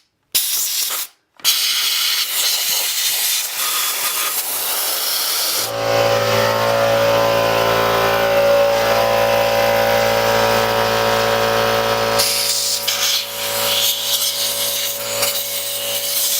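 Compressed-air blow gun hissing in bursts as it blows mud and dirt out of a dirt bike's air-box intake holes. About six seconds in, a steady machine hum starts and keeps running; the hiss stops a few seconds before the end.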